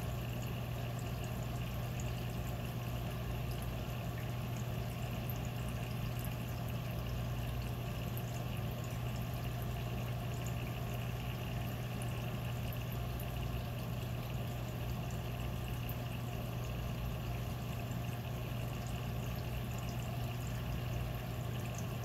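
Reef aquarium's water circulation: a steady wash of moving water with a steady low hum underneath.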